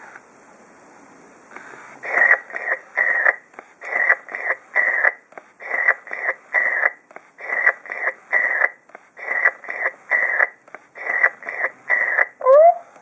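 FurReal Friends Giggly Monkey toy laughing through its small built-in speaker: a long run of short, breathy giggles in regular groups of about three. Near the end a rising, pitched hoot follows.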